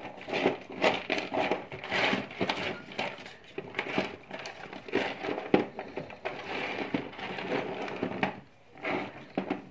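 Irregular crinkling, rustling and small clicks of hands handling small parts and wires at close range, with no steady tone.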